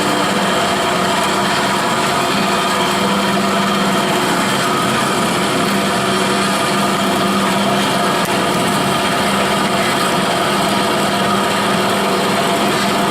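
WF Wells F-14 horizontal metal-cutting bandsaw running steadily, its 1-inch blade sawing through thin steel tubing under feed, over a constant motor hum.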